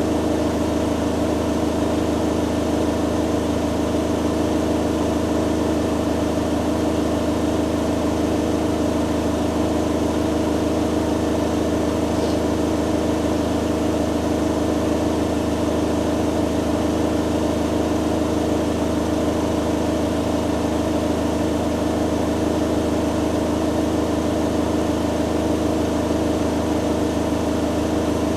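Hoover Dynamic Next DXA610IW3 washing machine on its spin cycle, the drum spinning at a constant high speed with a steady motor hum and whine.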